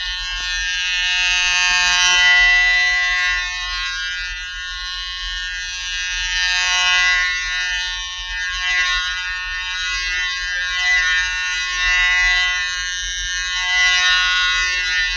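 Droney buzz sound effect: a steady, buzzing tone rich in overtones, with a low hum beneath. It swells and eases in loudness every few seconds.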